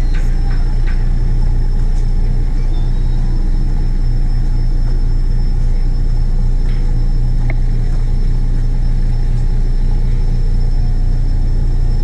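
Steady low engine rumble like a heavy vehicle idling, even throughout, with a faint steady high whine above it.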